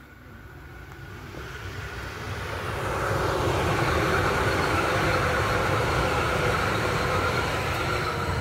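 Frankfurt U-Bahn light-rail train approaching and passing on surface track. The rumble of its wheels on the rails grows louder over the first three seconds, holds with a whine over the rumble while the cars go by, and begins to fade near the end.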